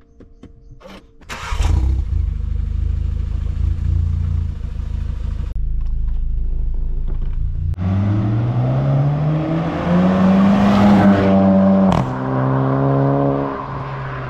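Volkswagen Golf 7 GTI's 2.0-litre four-cylinder turbo petrol engine starting with a brief flare about a second and a half in, then idling. Near the middle the engine note rises steadily in pitch for about three seconds, drops sharply with a click, and settles to a steady lower note.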